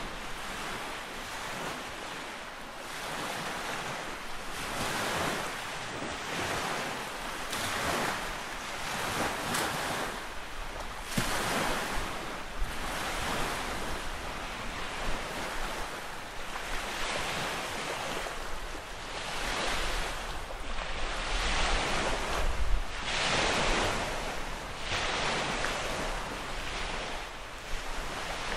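Small lake waves breaking and washing onto the shore in repeated surges every second or two. Wind rumbles on the microphone, strongest some two-thirds of the way through.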